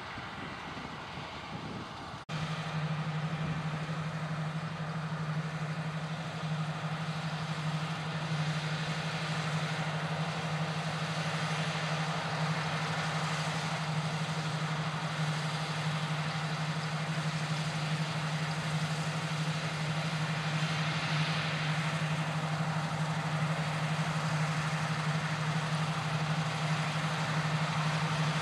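Claas Lexion 460 combine harvester running under load while cutting and threshing wheat: a steady low drone over a broad mechanical rush. About two seconds in the sound jumps abruptly louder as the machine is heard close up.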